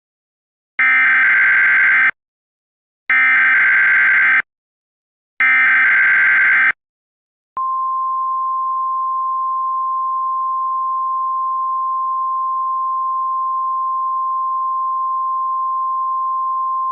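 Emergency Alert System SAME header: three short bursts of data tones, each about a second and a half long. About seven and a half seconds in, the long, steady NOAA Weather Radio 1050 Hz warning alarm tone begins, a single pure tone that marks the start of a new emergency alert.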